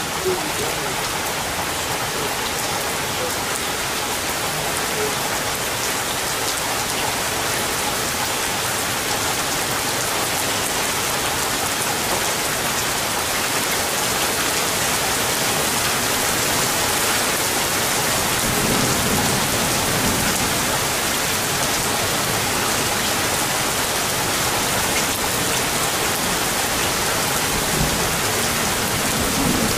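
Thunderstorm rain falling steadily, an even hiss with no break.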